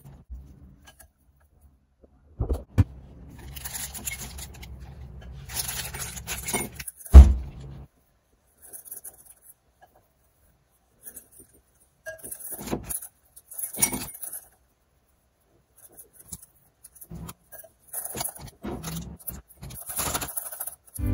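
Thin plastic bag crinkling and rustling in irregular spells as it is handled, fitted into a glass and filled with cookie dough, with a single loud knock about seven seconds in.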